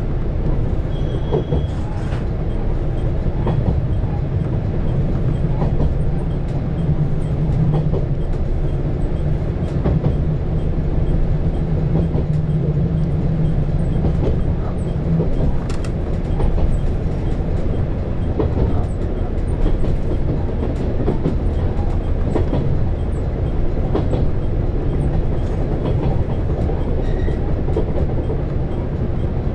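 KiHa 187 series diesel railcar's engine idling with a steady low hum, heard from inside the train while it stands waiting at a signal. Its low note eases off about halfway through.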